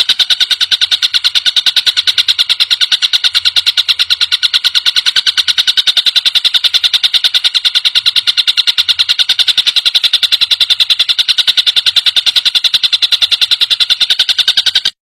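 Tengkek buto (collared kingfisher) giving a fast, high-pitched rattling chatter, about ten notes a second without a break, cut off abruptly near the end.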